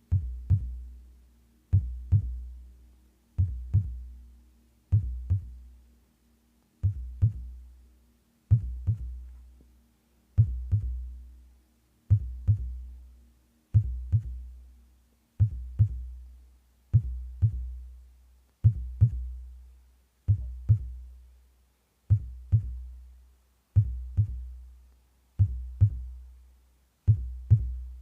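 Heartbeat sound: slow, even pairs of deep thumps (lub-dub), about one beat every 1.7 seconds, each followed by a low rumble that fades.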